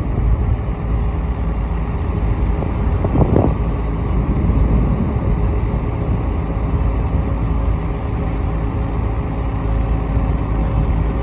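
Car ferry's diesel engines running, a steady low drone that is briefly louder about three seconds in.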